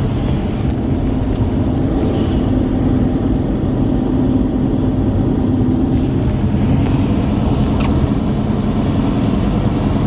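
Steady road noise inside a moving car's cabin at highway speed: tyres on a wet, slushy road and a low engine hum, with a few faint ticks.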